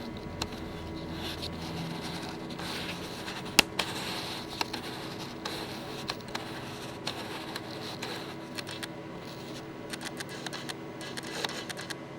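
The Nikon D3300 lens's autofocus motor refocusing, heard as brief faint whirring bursts and scattered clicks, with one sharp click about three and a half seconds in.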